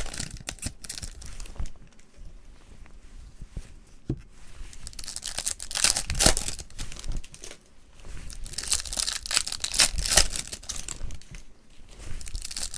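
Topps Match Attax Chrome card-pack wrappers being torn open and crinkled by gloved hands, in two main bouts of tearing and rustling with a quieter stretch between.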